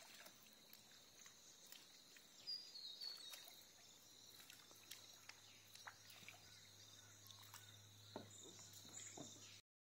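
Near silence: faint riverside ambience, a steady high-pitched hum with a few faint chirps and ticks. The sound cuts out shortly before the end.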